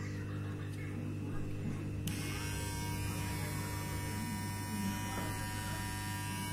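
HTC electric hair trimmer running with a steady hum. About two seconds in, a brighter, buzzier sound joins the hum.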